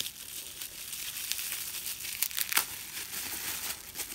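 Plastic bubble wrap crinkling and crackling as it is handled and unwrapped, with a few sharper crackles.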